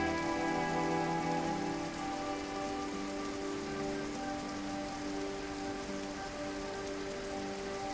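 Steady rushing of a waterfall, with soft music of long held notes that change slowly underneath.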